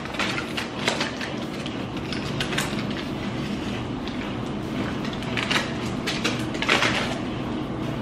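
Aluminium foil crinkling in irregular bursts as a foil wrap is peeled open by hand, loudest about two-thirds of the way through, over a steady low hum.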